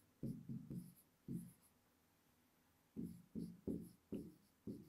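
Faint handwriting strokes of a pen on an interactive whiteboard screen as a sentence is written out: a few short strokes, a pause of about a second and a half, then a quicker run of strokes.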